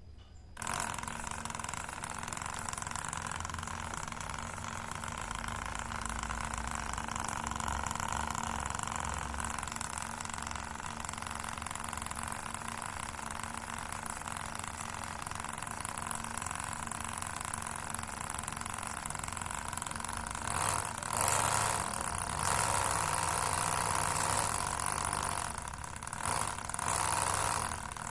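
Mini one-cylinder engine model built from PVC pipe and driven by a small Tamiya DC motor, running with a steady motor whine and mechanical hum. It gets louder for a few seconds near the end, as if sped up.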